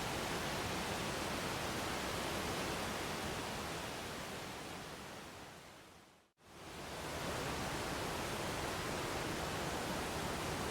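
Waterfall rushing with a steady, even noise. It fades out over about three seconds to a brief silence about six seconds in, then fades quickly back up, like a loop or edit join in the recording.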